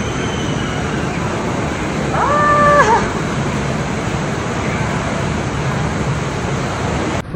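Steady outdoor waterpark din with a single held scream, a little over two seconds in, from a rider going down a water slide. The sound cuts off abruptly near the end.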